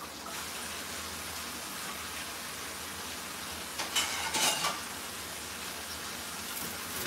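Steady sizzling hiss from a pot of aloo qeema cooking on a gas stove, with a few brief crackly rustles about four seconds in as bunches of fresh coriander are pulled apart by hand.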